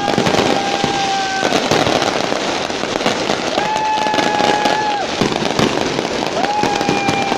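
Fireworks going off in a dense run of crackling bangs and pops as aerial shells burst. Over them, a steady horn-like tone is held for over a second three times.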